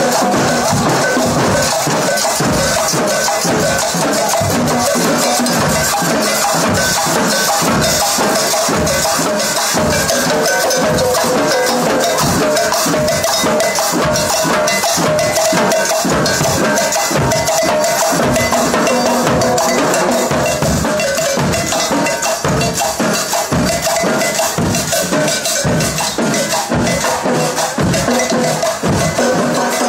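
Marching band drums, snare drums and a bass drum, playing a fast, steady march beat, with pitched notes sounding over the drumming.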